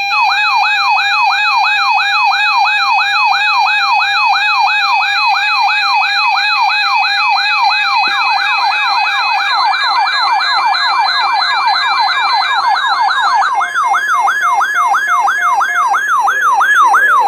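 Electronic alert siren from a weather alert radio, sweeping up and down about three times a second, with a steady beeping tone above it. About eight seconds in, a second siren sweeping slightly out of step joins the first.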